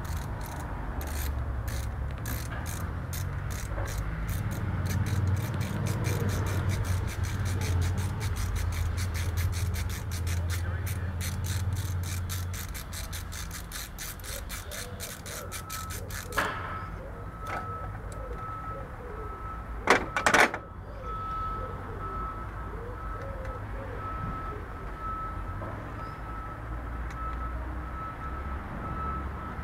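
Ratchet wrench clicking quickly, several clicks a second, as a coolant flange bolt on a VW 1.9 diesel cylinder head is undone; the clicking stops about halfway through. A couple of sharp knocks follow a few seconds later, and from about halfway a steady high beeping tone runs on to the end.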